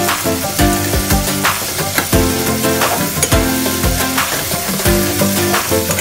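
Diced tomatoes sizzling in hot oil in a steel pot while a metal spoon stirs them. Background music with a steady beat plays throughout.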